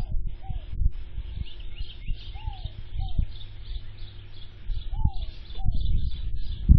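Birds calling: short arched notes repeating about twice a second, with higher chirps above them. Under the calls is a low rumble with scattered thumps, the loudest near the end.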